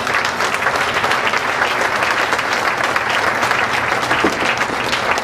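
Audience applauding: many people clapping at once, holding a steady level.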